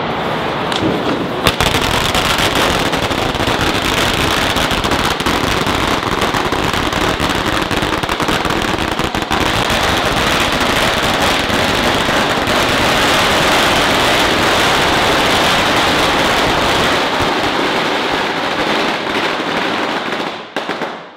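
A long string of Chinese firecrackers (bianpao) going off in a fast, unbroken crackle, which stops abruptly near the end.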